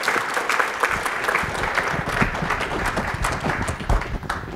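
Audience applauding, a dense patter of many hands clapping, which cuts off suddenly near the end.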